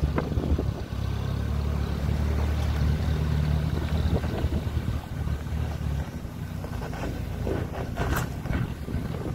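Off-road 4x4's engine pulling steadily under load as it climbs a steep, loose rocky slope: a low, steady drone that fades about six seconds in as the vehicle moves away. Wind rumbles on the microphone, with a few short crackles near the end.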